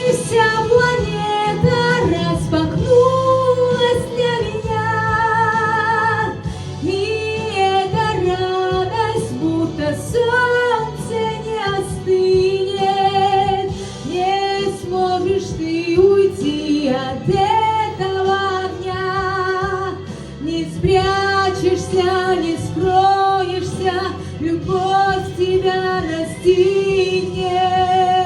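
A woman singing a song with vibrato over instrumental accompaniment, holding a long note near the end.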